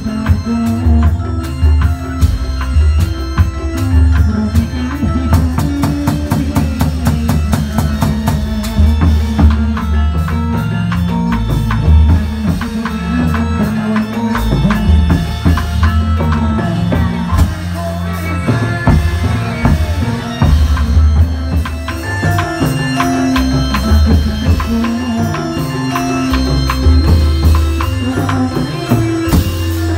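Loud amplified music for a Reog Indramayu dance: a driving drum beat with deep bass and melodic instruments over it, played through stacked loudspeakers.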